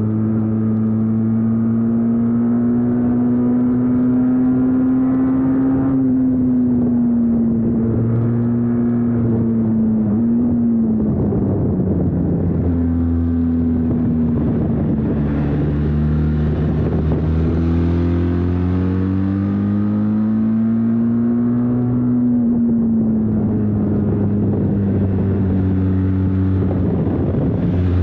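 Benelli TRK 502 X motorcycle's parallel-twin engine running while riding, its note slowly rising and falling with the throttle, with a short dip in pitch about ten seconds in.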